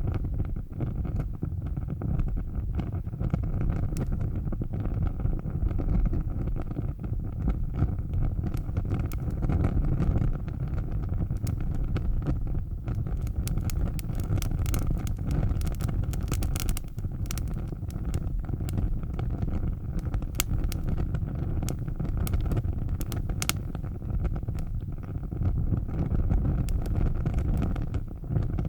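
Fire burning with a steady low roar and frequent sharp crackles and pops, thickest through the middle.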